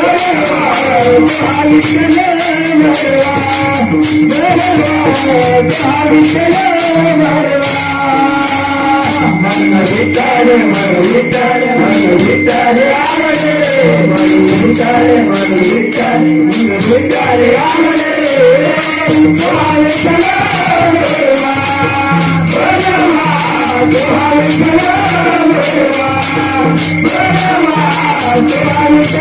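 Marathi devotional bhajan: a lead singer singing a gaulan melody over a steady held drone, with continuous bright jingling of small hand cymbals keeping the beat.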